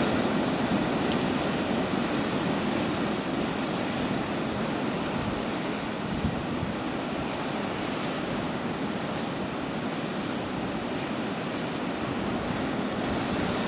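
Sea surf washing and breaking against a rocky shore, a steady rush, with wind buffeting the microphone.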